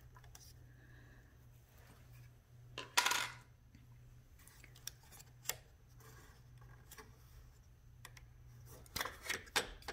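Sharp plastic clicks and rattles of a motorcycle wiring-harness connector being unclipped and pulled apart. The loudest click comes about three seconds in, with a few lighter clicks later and a quick cluster near the end, over a faint steady hum.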